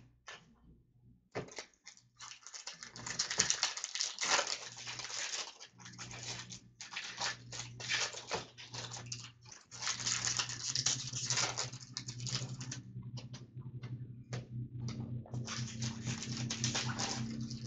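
Trading card packs being torn open and the cards handled: a busy run of crinkling, rustling and quick flicking of wrappers and card stock.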